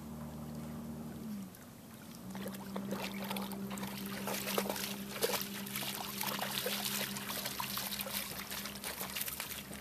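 A dog in a wheeled cart wading through shallow lake water, with splashing and dripping that starts about two seconds in and carries on. Under it is a steady low motor hum that dips and breaks off briefly early on.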